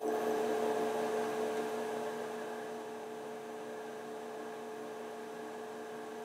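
Steady electrical hum with several fixed tones over a faint hiss, a little louder for the first couple of seconds and then even.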